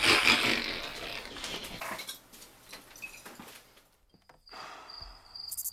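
Scraping and rustling with a few knocks, loudest at the start and fading over about two seconds. About four seconds in, crickets start chirping steadily.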